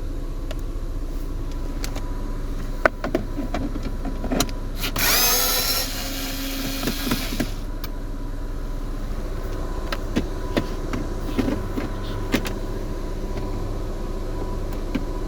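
A small electric motor whirs for about two and a half seconds, about five seconds in, rising in pitch as it spins up: a power screwdriver backing out a dashboard bolt. Scattered light clicks and taps of tools and trim pieces sound over a steady low hum.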